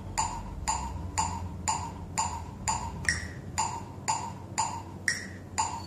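Korg Krome's built-in metronome counting in before sequencer recording: a steady click twice a second (120 bpm), with a higher-pitched click on the first beat of each four-beat bar.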